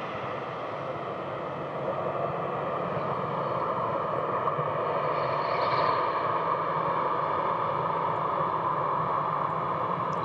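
Boeing 737 jet engines running in a steady rush, growing louder about two seconds in and holding there.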